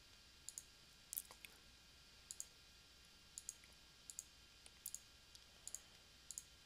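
Computer mouse button clicking about eight times at irregular intervals, most clicks coming as two quick snaps close together. It is the sound of on-screen calculator buttons being clicked to enter a sum.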